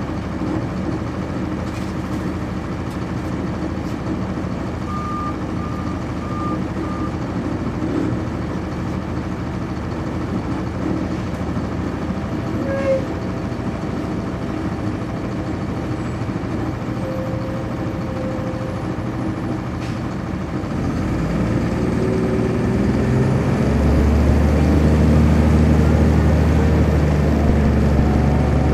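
The Cummins ISC diesel engine of a 1999 NovaBus RTS transit bus, heard from on board, running steadily, with a few short high beeps about five seconds in. About 21 seconds in the engine grows louder, with a deep drone and a pitch that steps upward as the bus pulls away and accelerates under load.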